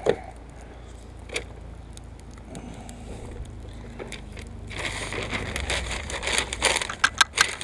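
Pink butcher paper rustling and crinkling as it is handled and folded, starting about five seconds in after a couple of soft knocks.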